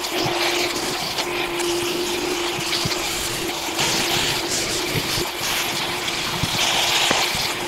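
Shop vacuum running for dust extraction, a steady hum with hiss, while a hose-connected sanding block scrubs sandpaper back and forth over cured epoxy, scratching louder and softer with the strokes.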